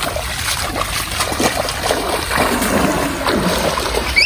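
River water splashing and trickling around a plastic-bottle fish trap as it is put into the water.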